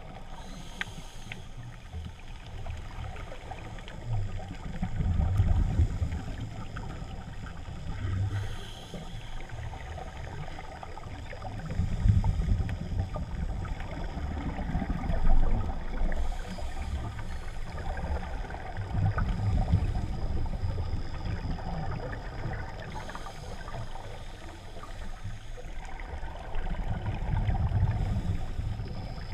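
Underwater water noise on a swimming diver's camera housing: low water rush that swells and fades in surges every few seconds over a steady hiss.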